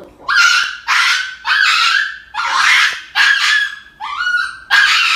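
Small dog yelping loudly in a run of about seven high, short cries, each about half a second long, while restrained for an injection at the vet. The cries come before the needle has gone in, out of fear rather than pain.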